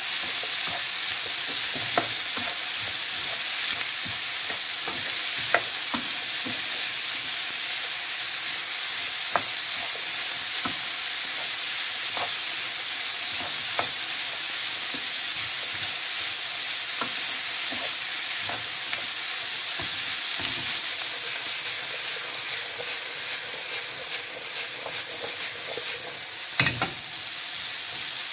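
Chicken liver, gizzard and chopped onion, tomato, capsicum, ginger and garlic sizzling in oil in a non-stick pan, stirred with a wooden spatula. The spatula clicks against the pan every second or two, with a louder knock near the end.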